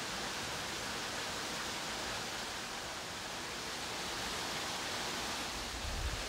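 Steady rush of water falling over a rock waterfall, cutting in abruptly. A low rumble comes in near the end.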